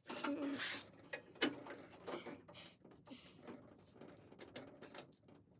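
Light clicks and rattles of small bolts and nuts being handled and threaded on by hand inside a steel Bronco tailgate, with one sharper click about one and a half seconds in.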